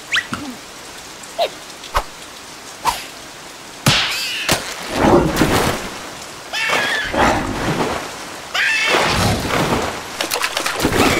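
Cartoon sound effects: a few sharp clicks, then a loud rushing, rain-like noise from about four seconds in. Squeaky, high-pitched creature voices chatter over the noise several times.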